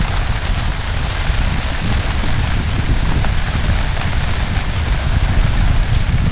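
Steady rushing noise of wind buffeting the microphone, with an uneven low rumble under a dense hiss.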